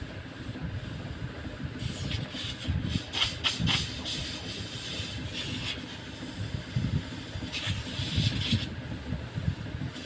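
R22 refrigerant gas hissing out of a refrigerator evaporator that is being flushed with it, coming in irregular bursts, over a steady low rumble.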